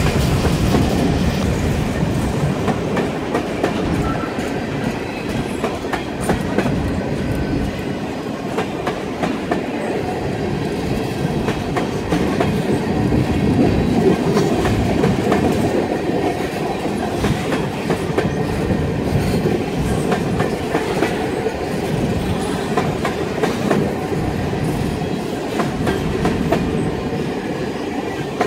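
Covered grain hopper cars of a freight train rolling past: a steady rumble of steel wheels on rail, with the clickety-clack of wheels striking rail joints.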